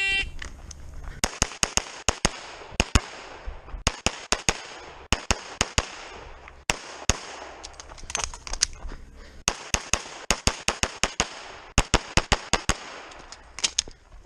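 A shot-timer beep, then a 2011-style pistol fired rapidly through a USPSA stage: quick pairs and strings of shots with brief pauses between bursts, typical of moving between positions and reloading.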